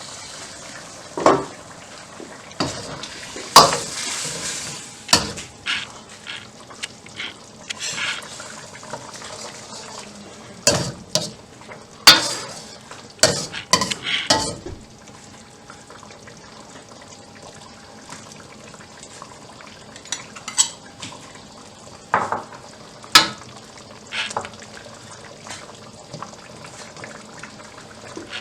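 A utensil stirring food in a cooking pot, knocking and clattering against the pot at irregular moments, over a steady faint hiss of the cooking.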